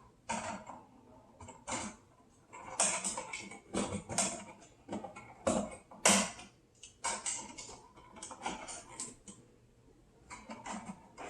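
Screwdriver working the terminal screws of a wall light switch loose, an uneven run of small metallic clicks and scrapes as the switch and its wires are handled, the sharpest click about six seconds in.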